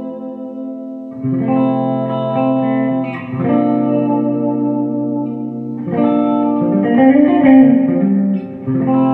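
Hollow-body electric guitar played through a Fender Bandmaster tube amp with reverb, strumming four long ringing chords: one about a second in, one near the middle, one a little later with some wavering notes, and a last one near the end.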